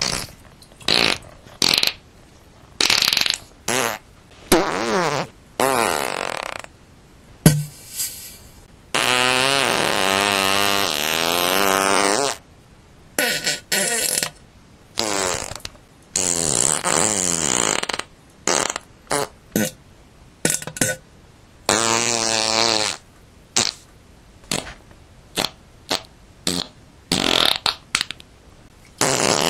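A rapid series of fart sounds separated by short pauses. Most are brief pops and sputters, and a few are long, drawn-out farts with a wavering pitch, the longest lasting about three seconds, starting about nine seconds in.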